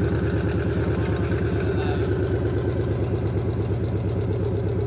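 2001 Ford F-150 engine idling steadily through long-tube headers with no catalytic converters and no mufflers, giving an open, rapidly pulsing exhaust note.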